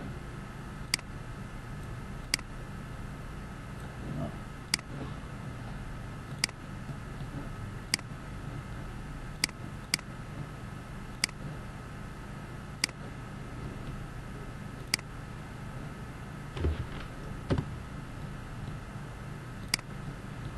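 Computer mouse clicking about a dozen times at irregular intervals, one to two seconds apart, over a steady electrical hum from the recording setup.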